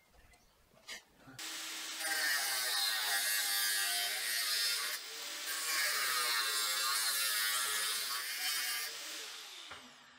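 Angle grinder with a thin cut-off disc cutting a steel rod clamped in a bench vise, throwing sparks. It starts about a second and a half in, runs loud with a whine that shifts in pitch as the disc bites, dips briefly midway, then fades out near the end.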